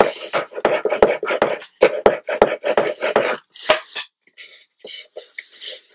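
A small linoleum roller run quickly back and forth over freshly glued fabric on a cardboard box panel, about three rolling strokes a second with small clicks from its frame. At about four seconds the rolling stops and a hand rubs softly over the fabric.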